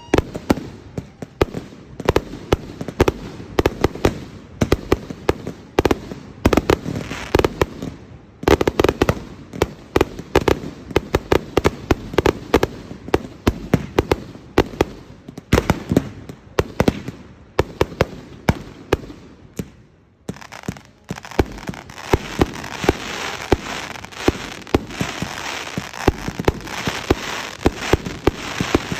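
Display fireworks going off in a rapid, dense run of shell bursts and bangs. A brief lull about two-thirds of the way through is followed by a thicker stretch, with a steady crackling hiss under the bursts.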